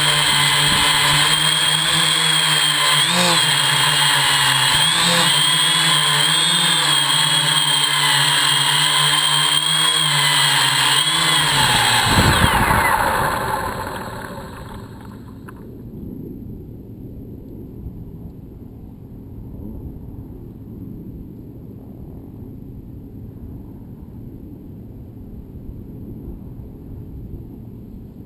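Hexacopter's brushless motors and propellers whirring steadily in flight, the pitch wavering slightly, then spooling down with a falling whine about twelve seconds in as the craft sets down and its motors stop. After that only a low rush of wind on the microphone remains.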